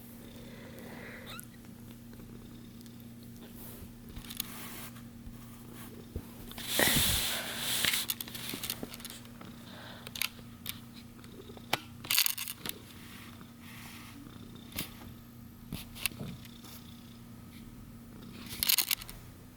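One-week-old kitten purring steadily, broken by sharp clicks and short noisy bursts, the loudest about seven seconds in and again near the end.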